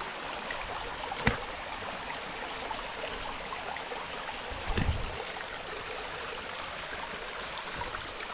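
Stream water flowing steadily, with a sharp click about a second in and a dull thump a little before the five-second mark.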